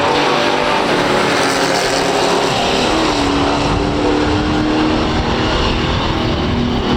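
Loud muscle-car engine running hard on a drag strip, with a steady droning note coming in about three seconds in.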